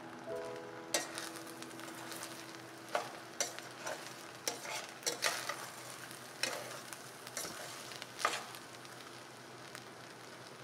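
A metal spoon stirring and fluffing cooked rice in a stainless steel pot: soft scraping, with scattered knocks of the spoon against the pot's side, over a steady faint hiss.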